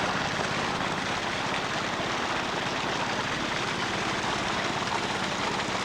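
Salvage pumps running steadily: a continuous even rushing engine noise.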